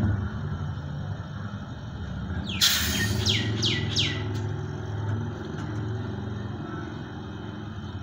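Hermetic refrigerator compressor running with a steady low hum, pumping air during a pressure check. About two and a half seconds in, a bird calls with a quick run of about five high, falling chirps.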